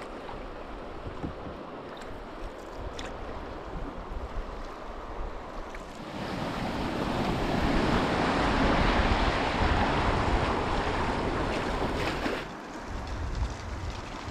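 River water rushing around the canoe, swelling to a louder rush for about six seconds midway and then easing off, with wind buffeting the microphone.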